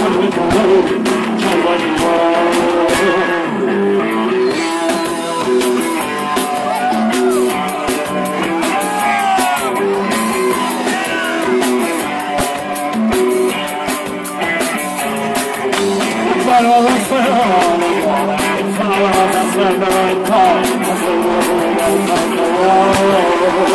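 Live rock and roll band playing, with singing over drums and electric guitar.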